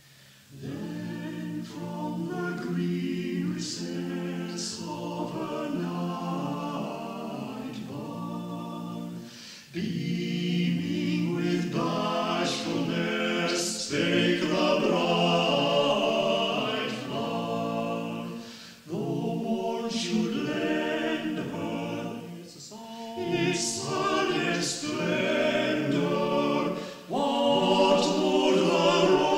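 Amateur choir singing unaccompanied, phrase after phrase with short breaths between them, heard on an old reel-to-reel tape recording.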